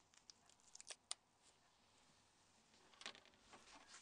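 Faint clicks and light rustling of a Nokia 5610's small plastic parts being handled and pulled apart with gloved hands, a few sharp clicks about a second in and softer ticks near the end.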